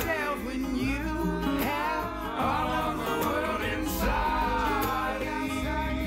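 Background music: an acoustic song with plucked guitar and a melody line that bends up and down over held bass notes.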